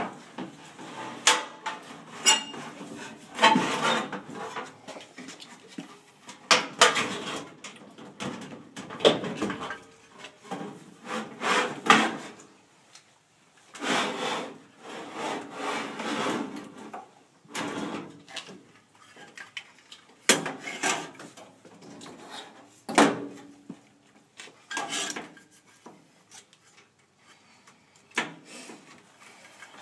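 Irregular knocks, scrapes and rubbing from hands working inside a furnace cabinet, handling the sheet-metal blower housing and then the wiring and connectors. Sharp knocks come about a second in, around 7 s, and again around 20 and 23 s, with longer rubbing and scraping stretches in between.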